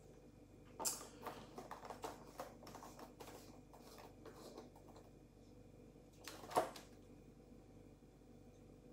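Faint clicks and knocks of a plastic Ghostbusters Neutrona wand replica being handled and set on its clear plastic stand on a wooden table, with a sharper click about a second in, a run of small taps after it, and another sharp click about six and a half seconds in.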